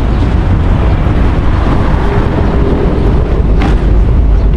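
Wind buffeting the camera's microphone, a loud steady low rumble.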